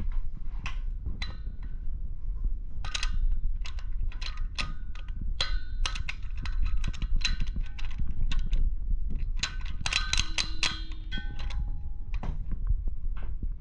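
A chrome scuba regulator clinking and clicking as it is handled and turned over in the hands: many small metal knocks, some ringing briefly, over a steady low rumble.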